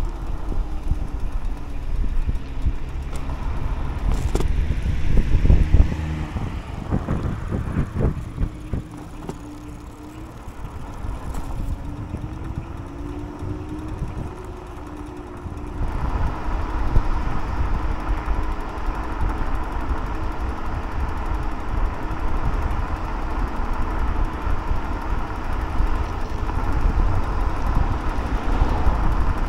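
Wind buffeting the microphone and road noise while riding an electric scooter, with a faint whine that rises and falls in the middle. The noise steps up and grows louder about halfway through.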